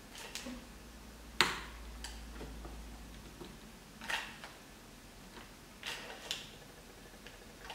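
Chopsticks knocking and scraping against a wok while stir-fried lobster is pushed out onto a plate: half a dozen scattered clicks and clinks, the sharpest about a second and a half in.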